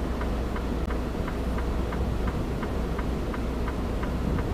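A semi truck's indicator flasher ticking steadily, about three ticks a second, over the low steady hum of the idling diesel engine.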